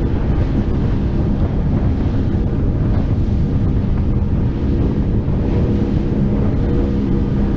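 Boat motor running steadily with the boat under way, with wind buffeting the microphone.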